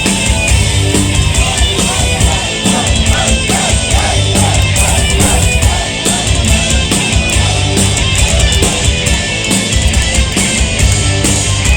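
A metal band playing live and loud, with a full drum kit and distorted guitars; a wavering melody line rises out of the mix about three seconds in.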